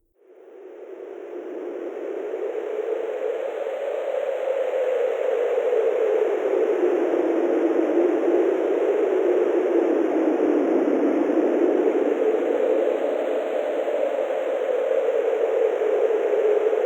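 Wind sound effect: a steady rush of wind that fades in over the first couple of seconds, its pitch slowly drifting up and down.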